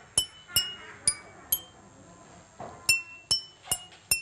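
Water-filled cups tapped one at a time with a paintbrush, each tap a short bright ringing note: a simple tune, the pitch of each cup set by its water level. Four notes in quick succession, a pause of about a second and a half, then four more.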